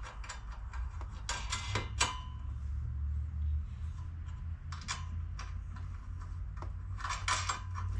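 A nut being threaded by hand onto a bolt of a steel bumper bracket, making scattered light metallic clicks and ticks in small clusters over a low steady hum.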